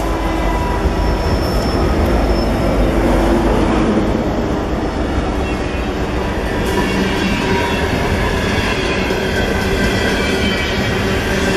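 Mixed freight train passing close by at speed. The trailing diesel-electric locomotives rumble past in the first few seconds, then tank cars and covered hopper cars roll by with steady, loud wheel-on-rail noise.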